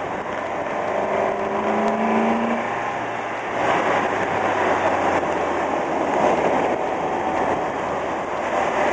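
Car driving on a winding paved road: a steady rush of tyre and road noise, with the engine note rising briefly about a second into the drive.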